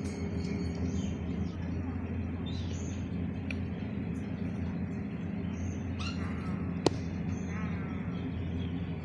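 Small birds chirping repeatedly over a steady low hum, with one sharp click near the end.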